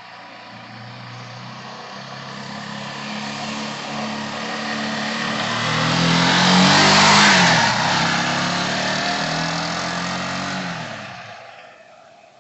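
A sport motorcycle's engine approaches under power, gets louder, and passes close about seven seconds in with a drop in pitch. It then fades away.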